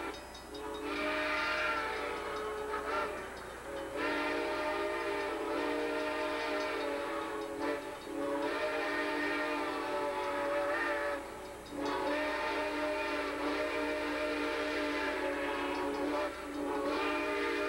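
Southern Pacific 786, a 2-8-2 Mikado steam locomotive, blowing its steam whistle in a series of about five long blasts with short gaps between them, several notes sounding together as a chord.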